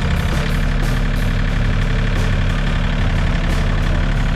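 An engine running steadily at an even speed, loud and close.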